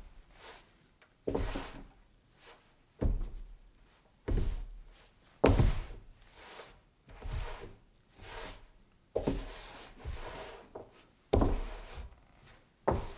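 A series of dull thuds or knocks, about a dozen separate hits spaced irregularly roughly a second apart, each dying away quickly.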